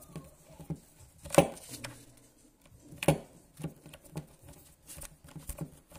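Small clicks and knocks of a screwdriver and metal parts being handled while an M3 bolt is unscrewed from an aluminium loader block. Two louder knocks come about a second and a half and three seconds in.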